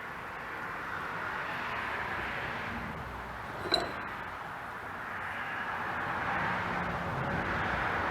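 A single sharp metallic clink a little before the middle, as of a tool or a metal part knocked, over a steady rushing noise that swells and fades.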